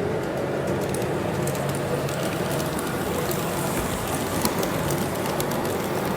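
LGB G-scale model train running on garden track: a steady rattle of wheels over the rails, with scattered ticks and a low hum.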